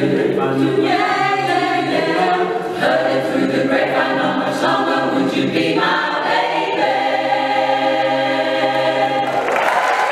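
Mixed choir of men and women singing a cappella, closing on a long held final chord that cuts off about nine seconds in. Applause breaks out right after.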